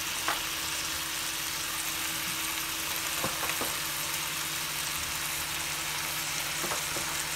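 Curry-seasoned chicken drumsticks frying in hot oil in a stainless steel pot, a steady sizzling hiss with a couple of faint pops a few seconds in.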